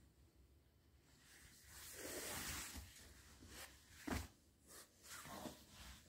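Quiet rustling of denim jeans being handled and turned over: a swell of fabric rustle about a second in, then a few short rustles and knocks.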